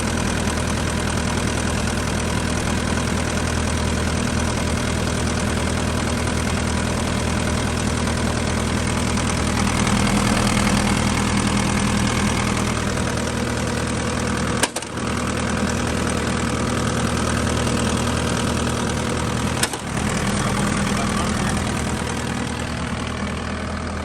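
Case SR175 skid steer's diesel engine running steadily at idle, smooth and without blow-by; it will not rev past idle, which the seller thinks could be a sensor. The sound cuts out briefly twice, about 15 and 20 seconds in.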